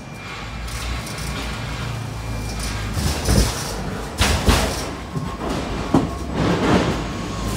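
Truck cab on the road: steady low drone of the DAF XF 530's engine and rolling road noise, with several short knocks and rattles between about three and seven seconds in.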